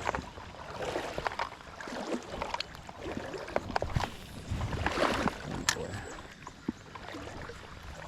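Creek water sloshing and splashing, with many scattered clicks and rustles.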